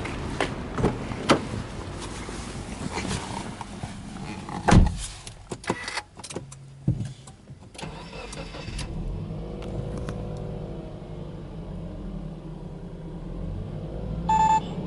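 Footsteps and a heavy thump, then the Subaru Impreza hatchback 1.5i-S's flat-four boxer engine is cranked and starts about seven seconds in. It settles into a steady fast idle near 1,700 rpm, a cold start. A short electronic beep sounds near the end.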